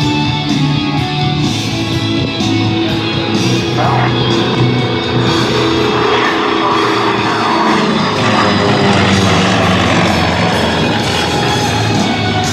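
Loud rock music with electric guitar playing over an airshow's public-address system.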